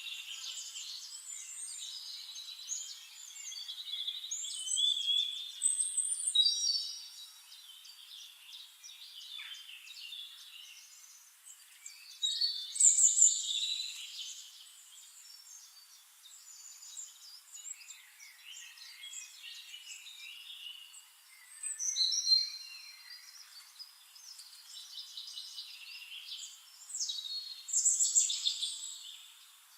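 Several songbirds singing and chirping over one another in quick, high warbled phrases, with louder bursts of song every several seconds.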